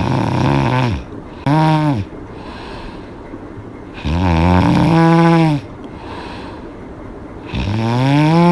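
A woman snoring loudly with her mouth open: four pitched, droning snores with quiet breaths between, the third and the last the longest, each bending in pitch.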